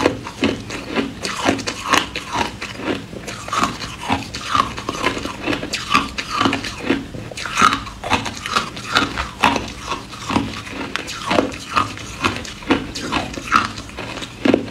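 Ice being bitten and chewed: a steady run of crisp crunches, about two a second.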